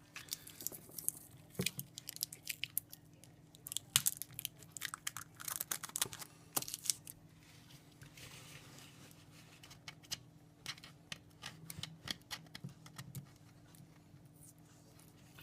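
Irregular small clicks, taps and rustles of hands handling the plastic parts, screws and sellotape of a PAG PL96e battery's piggyback link connector during reassembly.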